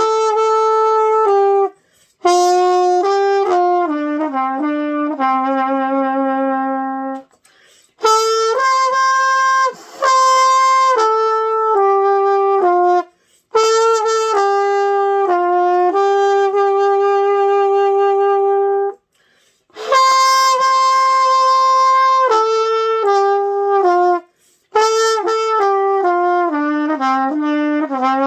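Trumpet playing a simple melody in phrases of clean, held notes, each phrase ending a few steps lower. The phrases are split by short breaks for breath.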